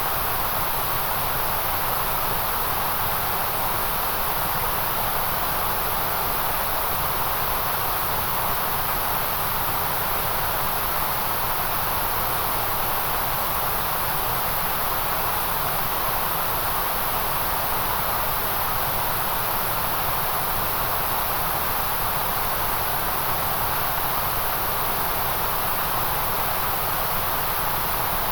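Steady synthetic noise played as a focus aid: an even, unchanging hiss with its strongest band near 1 kHz, a dip around 8 kHz and a bright band of high hiss above that.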